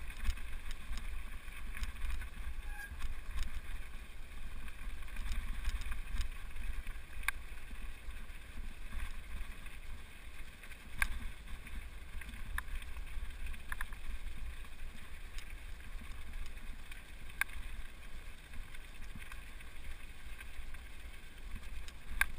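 Wind buffeting the microphone with a steady low rumble, over tyres rolling on a loose gravel track, with scattered sharp clicks of stones.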